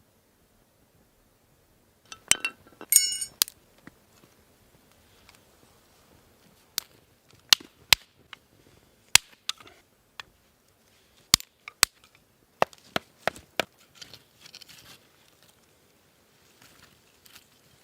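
A string of sharp, irregular clicks and knocks, about fifteen in all, with a brief high squeak about three seconds in.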